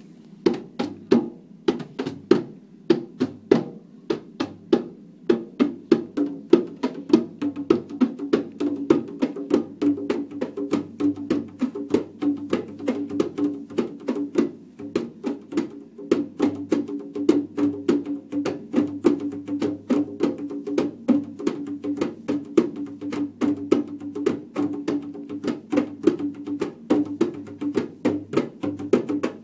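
Djembe played by hand: a steady run of sharp slaps and tones, several strikes a second, sparser for the first few seconds and then denser, over the drum's ringing low tone.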